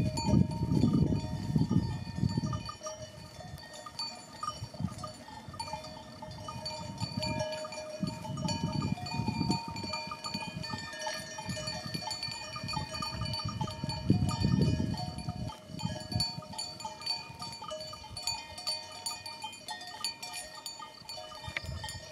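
Many bells on a grazing flock of sheep and goats clinking and ringing at many different pitches, on and off throughout. Low gusts of wind rumble on the microphone near the start and twice more partway through.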